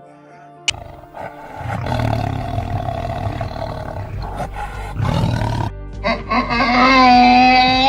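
Animal calls over background music: a low, rough roar through the middle, then a long, steady, pitched call near the end.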